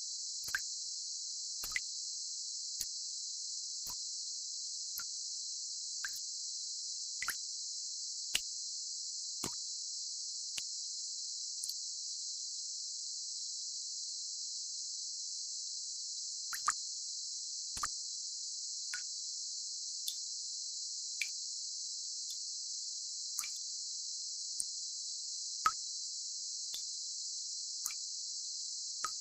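Tinnitus-relief sound: a steady high-pitched hiss, like a constant insect chorus, with single water drops plopping about once a second and a pause of a few seconds midway.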